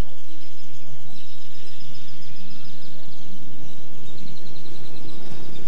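Outdoor street ambience: a low murmur of distant voices with high, thin chirping trills over it, repeating in quick ticks.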